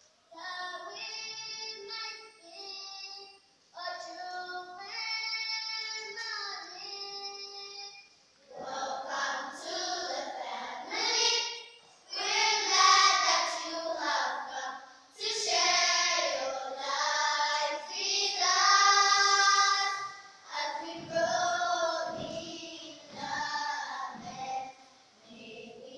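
A children's choir singing in phrases separated by short breaks; the singing grows louder about eight seconds in.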